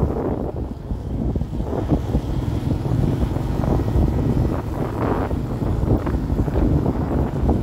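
Wind buffeting the microphone of a moving motorbike, a steady rumbling rush over the bike running underneath.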